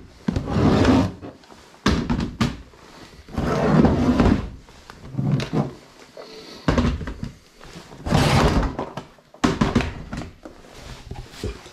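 Clear plastic tackle boxes being lifted, slid and set down on a boat's deck: a series of thunks and rattles, one every second or so.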